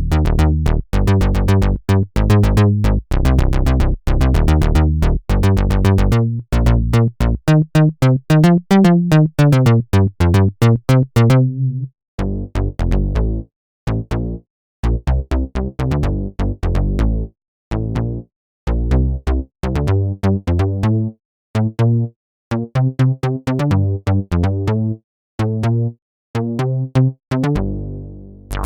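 Roland SH-201 analog-modelling synthesizer playing a series of bass patches: short, punchy notes with a click at each attack, in phrases broken by brief gaps. About eight seconds in, a resonant filter sweeps up and back down.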